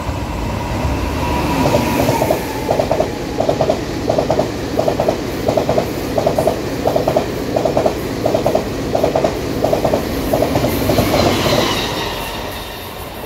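Taiwan Railway push-pull express train passing, its wheels clacking over rail joints in quick pairs about every 0.7 s. The running noise builds, then fades near the end.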